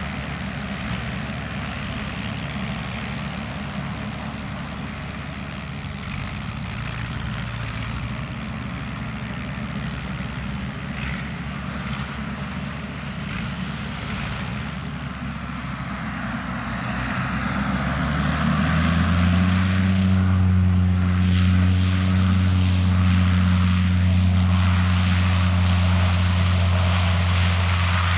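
Engines run steadily at first. About two-thirds of the way in, the sound rises in pitch and grows louder into a steady propeller drone: the Zlin Z-137T Agro Turbo crop-dusting plane's Walter M601 turboprop going to takeoff power for its takeoff run.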